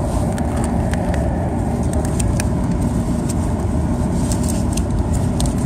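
Steady road and engine noise inside a moving car's cabin, a continuous low rumble, with scattered light clicks over it.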